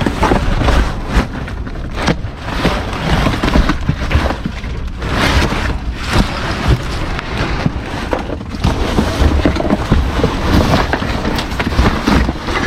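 Close rummaging through trash in a dumpster: bags rustling and items knocking and scraping in an irregular jumble of short noises.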